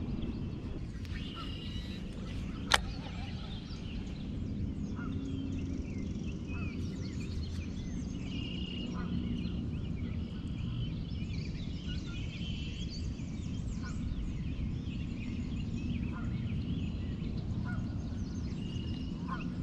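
Birds chirping and calling on and off over a steady low rumble, with a single sharp click about three seconds in.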